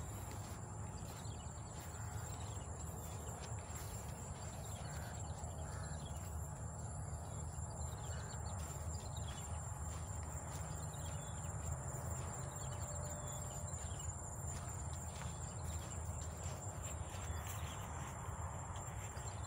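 Insects chirring in one steady, high-pitched drone, over a low rumble and the soft footsteps of someone walking on a dirt track.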